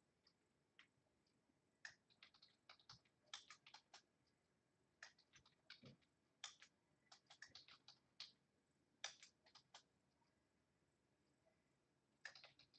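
Faint typing on a computer keyboard: quick, irregular runs of key clicks broken by short pauses.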